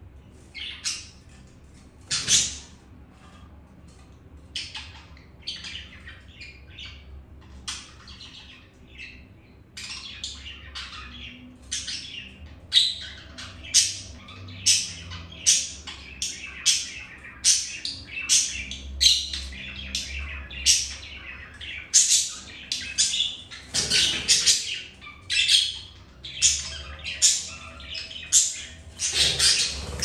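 A small group of budgerigars chirping and squawking in short, sharp calls, sparse at first and coming thick and fast from about a third of the way in, with a few louder flutters of wings.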